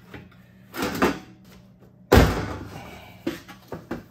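Thin sheet-steel fender repair panel shifted by hand against the car body: a scrape about a second in, a sharp metallic bang about two seconds in, then a few light knocks.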